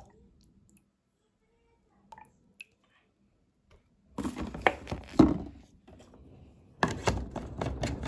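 Near silence with a couple of faint clicks, then about four seconds in loud close-up rustling and knocking from plastic bottles and a measuring cup being handled, with a short break before it starts again.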